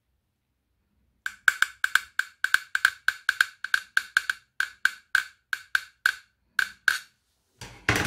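Scissor tip tapping quickly and repeatedly on the casing of a FITFORT USB-C hub, about four sharp taps a second, each with a short ring. The shell looks like metal, and the tapping shows that it is plastic. A louder handling rustle comes near the end.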